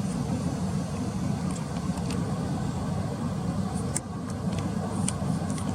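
Steady low rumble of distant road traffic, with a few brief, faint high ticks in the second half.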